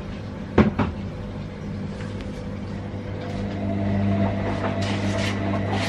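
Two sharp knocks close together about half a second in, over a steady low machine hum that gets louder from about three and a half seconds.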